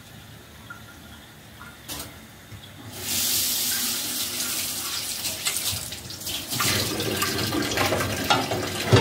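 Kitchen tap turned on about three seconds in, water running steadily into a stainless steel sink as a plate is rinsed under the stream, the splashing growing heavier partway through. A sharp knock near the end.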